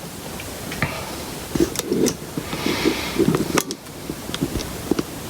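Scattered light clicks and soft taps of small tools and parts being handled during desoldering on a guitar pedal's circuit board, over a faint steady hiss.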